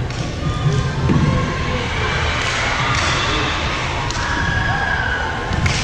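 Voices and chatter from spectators and players echoing in a gymnasium, with a couple of sharp ball impacts near the end.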